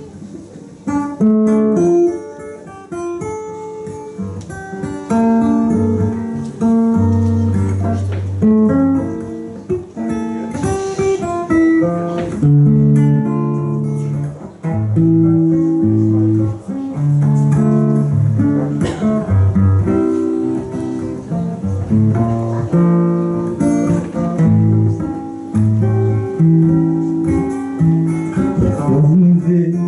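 Instrumental guitar music, plucked and strummed, with low bass notes beneath.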